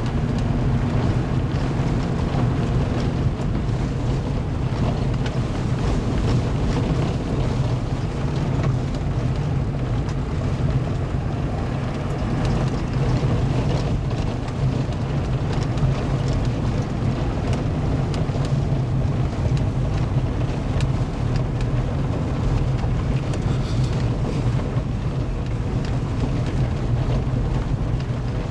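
Steady rumble of a vehicle driving on a gravel road, heard from inside the cab: engine and tyre drone with a constant crackle of loose gravel under the tyres.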